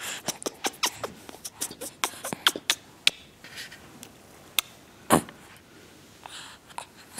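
Rapid mouth clicks and smacks, several a second, thinning out after about three seconds, with one louder smack about five seconds in.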